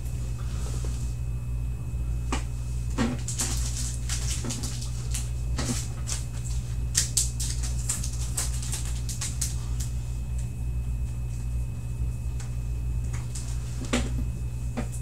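Steady low hum with scattered light clicks and rustles of handling.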